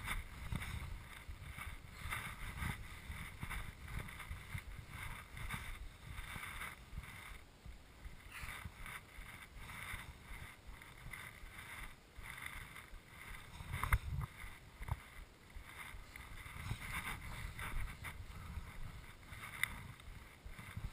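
Movement Response X skis carving turns through deep powder snow: a repeated swish and hiss of snow spraying with each turn over a low rumble, with one louder knock about two-thirds of the way through.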